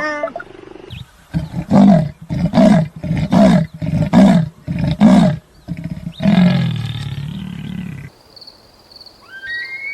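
A large animal roaring in a rhythmic series of about six deep calls, each under a second apart, ending in one longer drawn-out call. A high, steady whistle-like tone begins near the end.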